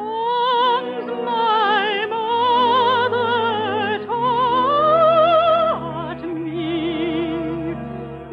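Operatic singing in a radio musical: one trained voice with a wide vibrato holds long, slow notes over soft orchestral accompaniment, climbing to its highest and loudest note around the middle before dropping lower.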